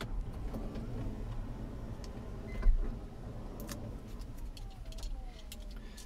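Power sliding door of a Toyota Sienna running on its electric motor, worked from the smart key fob, with one sharp thump about two and a half seconds in and a short falling tone near the end.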